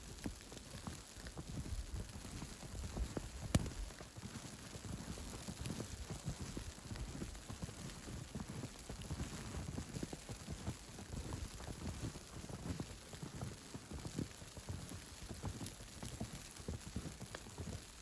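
Footsteps crunching through fresh snow at a steady walking pace, with one sharper click about three and a half seconds in.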